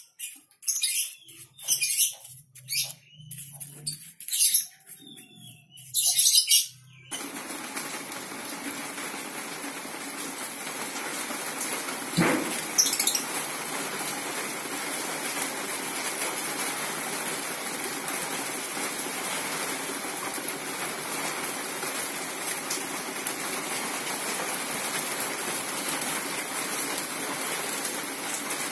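Paintbrush bristles swished quickly back and forth over carved wood, laying on a tint in short strokes. After about seven seconds this gives way to a steady rushing noise, broken once midway by a sharp knock.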